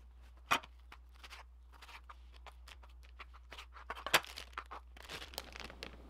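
Paper towel and a plastic zipper bag being handled, with light rustling and crinkling and scattered small ticks. Two sharp knocks stand out, one about half a second in and a louder one about four seconds in, and the crinkling grows busier toward the end.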